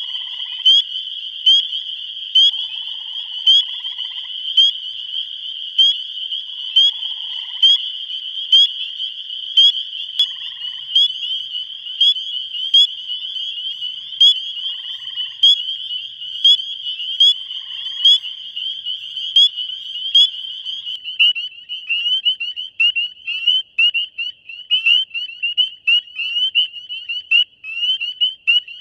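Spring peepers calling in a dense chorus: a near frog's short, high, rising peeps repeat about once a second over the steady din of many others. In the first part, short lower buzzy notes come and go. About two-thirds of the way in the sound cuts to a different peeper recording, with a different rhythm of peeps.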